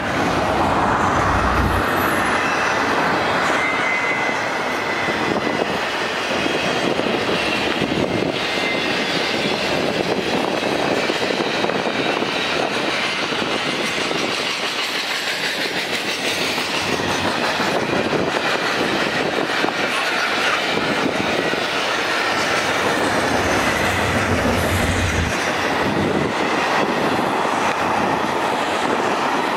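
Double-stack intermodal container cars of a freight train rolling past at close range, with the steady noise and clatter of steel wheels running on the rails.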